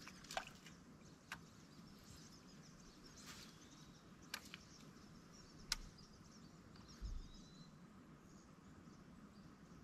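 Near silence: quiet outdoor ambience with faint high chirps and a handful of light, sharp clicks, the loudest just before six seconds in, followed by a soft low thump about a second later.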